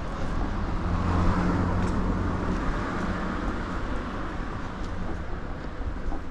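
Road traffic: a car passing close by, its engine and tyre noise swelling about a second in and then slowly fading over a steady low engine hum.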